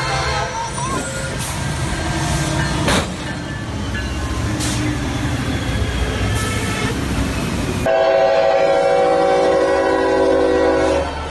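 Norfolk Southern diesel freight locomotive passing a road crossing, with a steady rumble of engine and rails. About eight seconds in, a locomotive horn sounds a steady chord of several tones for about three seconds.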